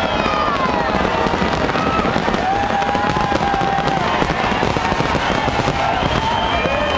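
Fireworks display going off in a continuous, dense crackle of many small bangs.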